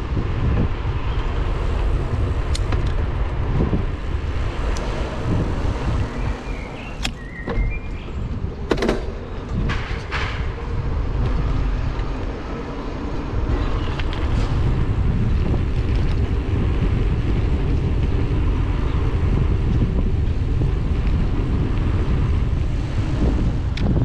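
Steady wind noise on the microphone and tyre rumble from a mountain bike rolling along asphalt, with a few sharp clicks, mostly between about seven and ten seconds in.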